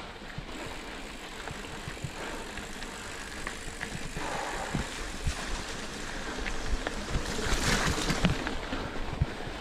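Mountain bike ridden over a rough trail: wind rushing over the microphone, with scattered knocks and rattles from the bike over bumps. The rush swells louder about seven and a half seconds in, then eases.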